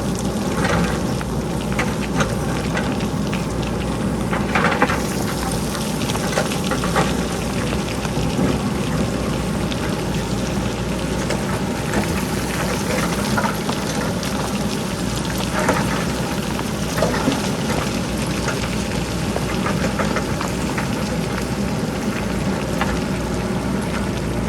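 Pebbles and broken rock clattering in a dense, steady patter as they tumble down a cut hillside, with a few heavier knocks of boulders, over the steady low run of the JCB backhoe loader's diesel engine.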